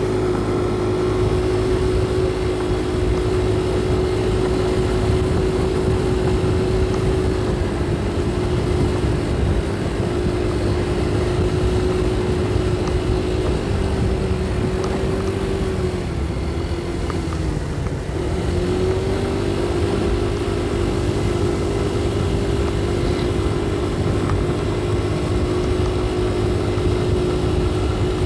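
Motorcycle engine running at a steady road speed, heard through a helmet-mounted microphone with wind and road rumble. About halfway through, the engine note drops twice, then climbs back and holds steady.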